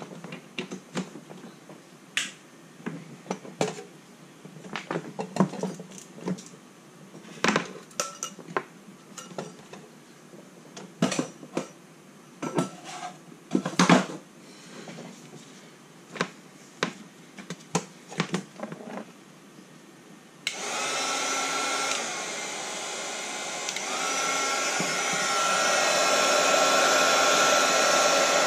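Scattered clicks and knocks, then about two-thirds of the way through a small electric heat gun switches on and blows steadily, a fan rush with a steady whine, growing louder in steps as it is brought to bear on marine heat-shrink tubing over wires.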